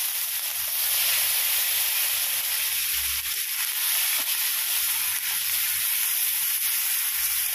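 Onion paste frying in hot mustard oil in an aluminium kadai, a steady sizzle, stirred with a metal spatula.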